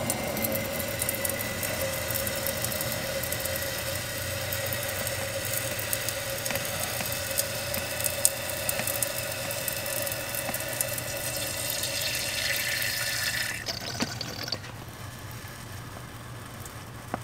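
A thin stream of gasoline squirted from a squeeze bottle, trickling steadily into the liquid pooling on top of a piston in an open cylinder bore, filling the cylinder for a gasoline leak-down test of the rings. It becomes noticeably quieter about fourteen seconds in.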